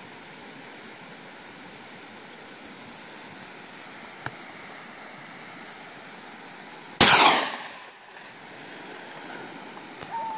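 A single gunshot about seven seconds in, sharp and loud, trailing off over about a second, over a faint steady background hiss.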